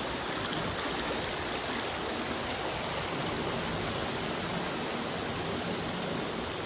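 Steady rushing of floodwater from a stream that has burst its banks and is running across a street.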